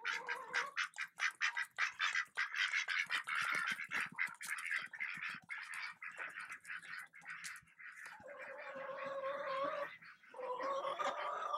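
Ducks and chickens calling while a herding dog moves them: quick, clipped quacking calls through the first half, then two long, held calls in the second half.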